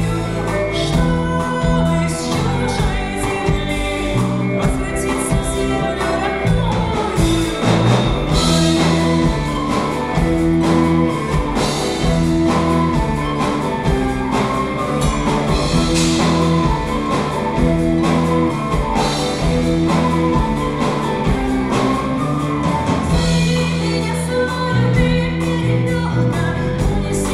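Live folk-rock band playing a song with a female lead vocal over drums and guitar.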